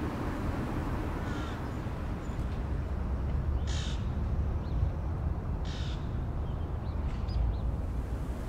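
Three short, harsh bird calls, roughly two seconds apart, over a steady low rumble.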